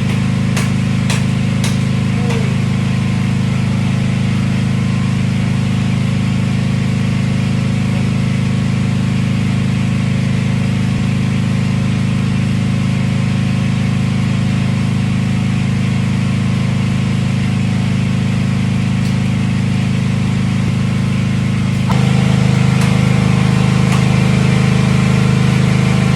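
Petrol generator running steadily with a low hum, powering the house during a mains power cut. A few sharp knocks sound in the first two seconds, and the hum gets louder about 22 seconds in.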